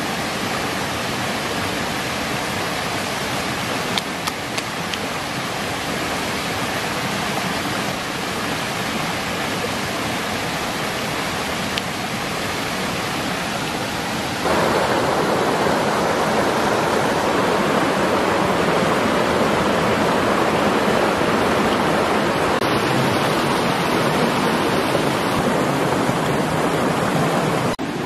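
Steady rush of stream water running over rocks, growing louder and fuller about halfway through.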